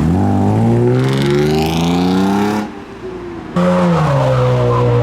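A loud car engine under hard acceleration, its pitch climbing for about two and a half seconds, then cutting off abruptly. About a second later it comes back loud with the pitch sliding down.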